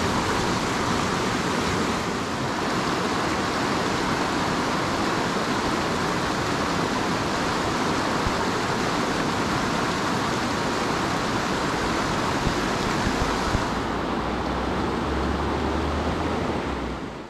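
Fast-flowing river rushing steadily. In the last few seconds the sound turns duller and a low rumble comes in.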